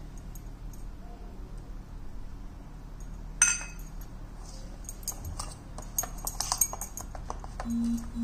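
Metal spoon scraping and clinking against a stainless steel bowl as a dry, crumbly coconut and milk-powder mixture is stirred. There is one sharp ringing clink about three and a half seconds in, then a run of quick clicks. A short low hum comes near the end.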